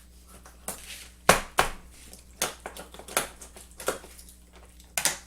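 Knife cutting through chicken breastbone on a cutting board: a run of sharp crunching cracks, about six or seven, the loudest a little over a second in.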